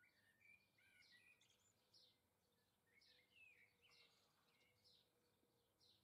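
Faint songbird chirps and twittering: short high calls about twice a second, with runs of quick warbling notes near the start and again around the middle, over a thin steady hum.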